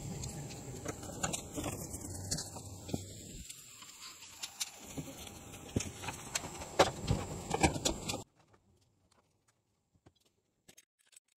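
Scattered metallic clicks and knocks from hands handling the metal chassis and parts of an opened UPS, over a steady hiss with a thin high whine. The hiss cuts off suddenly about eight seconds in, and only faint ticks follow.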